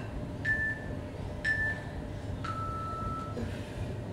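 Interval timer beeping its countdown: short high beeps about a second apart, then one longer, lower beep that marks the start of a work interval.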